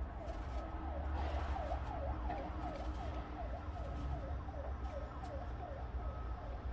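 A siren quickly sweeping down and up in pitch, about two and a half cycles a second, over a low steady rumble.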